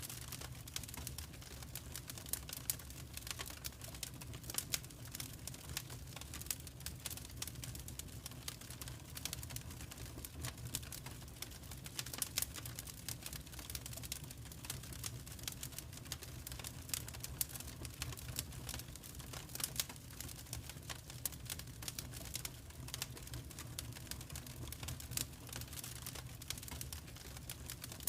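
Wood fire in a fireplace crackling: irregular sharp pops and snaps, some louder than others, over a steady low rumble.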